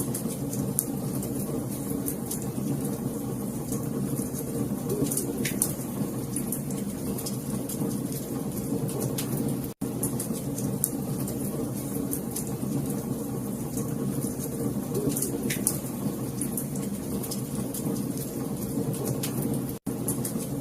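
Wood fire crackling: a steady low rumble with scattered sharp pops and snaps. The sound cuts out for an instant about every ten seconds.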